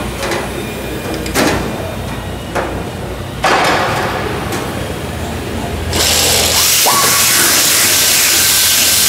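Hose-fed handheld air tool working on aluminium aircraft skin. It runs in a few short bursts, then runs steadily for the last three seconds with a loud high noise and a steady whine.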